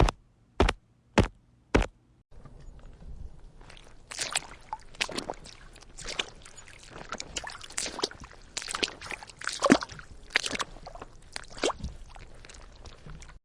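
Footsteps: four crisp, evenly paced steps on a hard surface, then about two seconds in a different recording of irregular, squelching steps through wet ground over a steady hiss.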